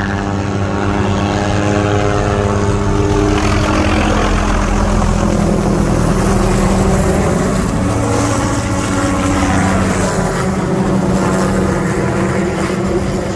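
Hughes 500D turbine helicopter flying low and passing close overhead, its rotor and turbine running steadily. The sound swells to its loudest about halfway through as the machine comes over.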